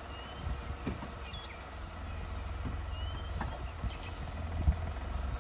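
Safari vehicle's engine idling with a steady low rumble, under a few short, high, upward-gliding bird chirps and a sharp knock near the end.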